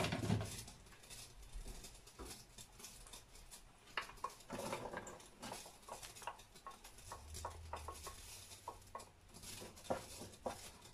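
Kitchen handling sounds: a knock as the oil bottle is set back in its rack, then chopped onion tipped from a glass bowl into a frying pan and stirred with a wooden spoon, a string of light, irregular taps and scrapes from about four seconds in.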